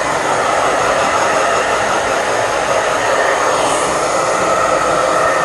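Hair dryer running steadily, a constant rush of air with a faint steady whine, as it blows on a wet dog's fur.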